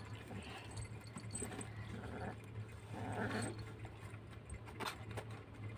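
Two kittens play-fighting: faint scuffling and small clicks, with a soft breathy kitten sound about three seconds in, over a low steady hum.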